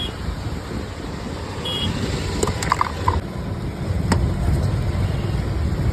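Street traffic noise: a steady low rumble of vehicles, with a short high horn beep a little under two seconds in and a few sharp clicks.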